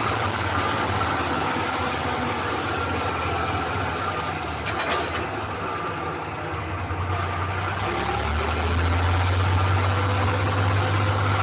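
Torpedo 4506 tractor's diesel engine running, heard from the driver's seat. There is a short knock about five seconds in, and from about eight seconds the hum turns deeper and louder.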